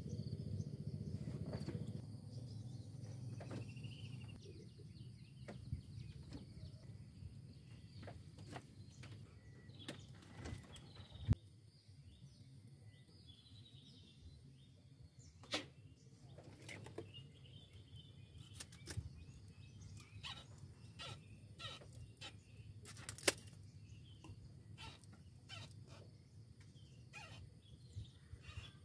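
Quiet open-air ambience with faint scattered bird chirps, a low rumble that fades in the first couple of seconds, and occasional sharp clicks and taps, three of them standing out.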